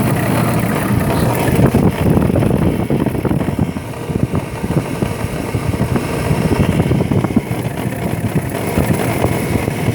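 Hummer H2's 6.0-litre GM V8 idling with the serpentine belt on, under a loud rapid knocking clatter that sounds like engine knock but comes from the alternator, whose shaft is broken and jammed. The knocking rises and falls in loudness.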